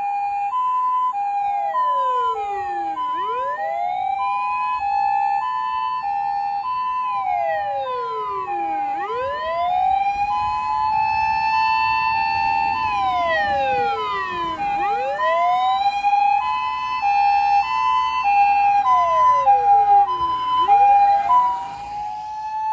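Japanese fire engine on an emergency run, its wailing siren sweeping up, holding, then falling in slow cycles about every six seconds, together with a two-tone hi-lo siren switching between a high and a low note about twice a second. The sirens get louder near the end.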